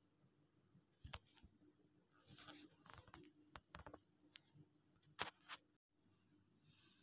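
Handling noise from a phone camera being moved over bedding: soft rustling and several sharp clicks from about one second in to about five and a half seconds in. Behind it the room is near silent apart from a faint steady high pulsing tone and a low hum.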